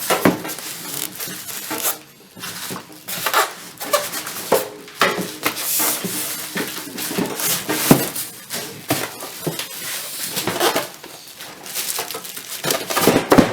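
Irregular metallic clanks, knocks and clinks of a Craftsman metal tool chest being handled and unpacked, with scraping and rustling in between.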